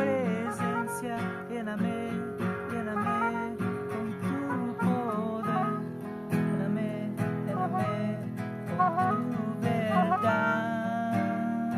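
Oboe and acoustic guitar playing a duet: the oboe carries a flowing melody over plucked guitar chords.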